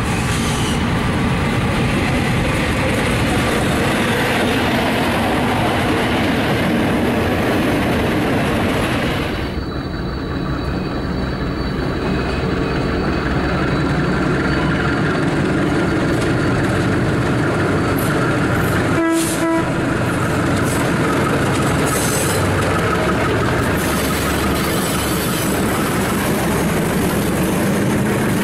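General Electric-designed SAR diesel-electric locomotives, among them 35 Class 35-043 (a GE U15C), running under load as they haul a long train of wagons past, with engine and wheel noise throughout. A short horn blast about 19 seconds in.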